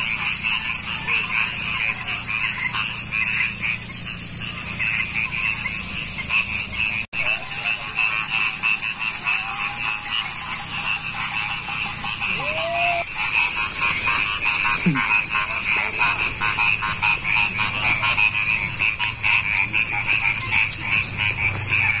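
A chorus of frogs croaking with fast, repeated pulsing calls over a steady high-pitched drone, with a few lower arching calls now and then. The sound cuts out for an instant about seven seconds in.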